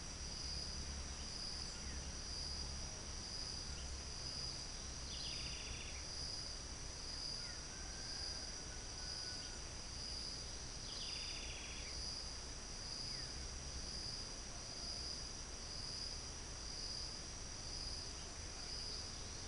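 Insects calling in a steady high chorus that pulses about once a second, with two short high calls about five and eleven seconds in.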